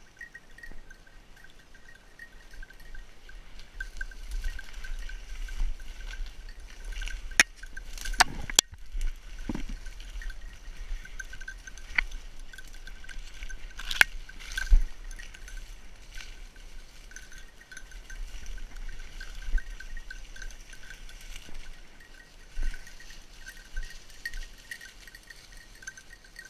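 A hunting dog's bell ringing steadily as the dog works through the brush. A few sharp cracks cut through it, the loudest a close pair about eight seconds in and another about fourteen seconds in.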